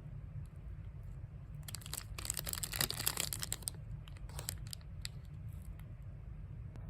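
Crinkling, tearing handling noise, loudest for about two seconds starting near the two-second mark, with a few shorter crackles after it, over a steady low rumble.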